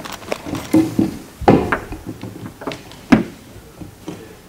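Irregular wooden knocks and thuds from plywood building parts being handled and fitted together, about eight in all. The sharpest come about a second and a half in and just after three seconds.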